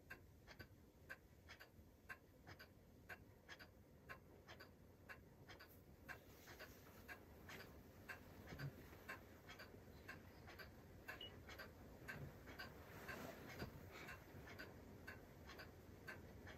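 Near silence in a quiet room, with a clock ticking steadily, about two ticks a second.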